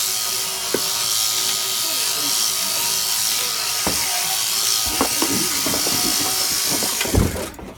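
Electric sheep-shearing handpiece running with a steady high whirr, cutting off suddenly near the end, followed by a few thumps.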